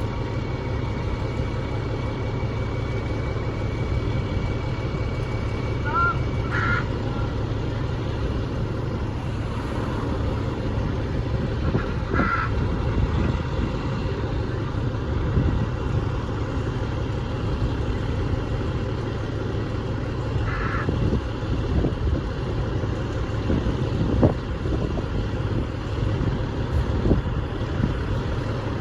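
A fire truck's diesel engine running steadily as a low, even rumble. A few short bird calls sound over it, at about 6, 12 and 21 seconds in.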